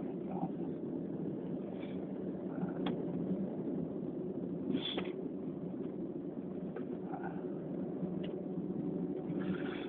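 Steady low background hum with a few faint, brief sounds scattered through it; no sneezing.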